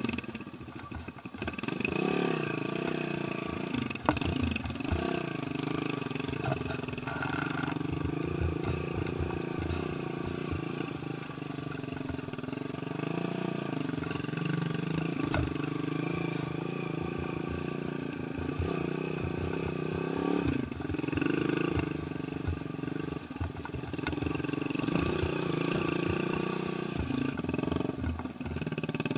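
Small motorcycle engine running under way over a dirt track, its pitch rising and falling with the throttle, easing off briefly about two-thirds of the way through.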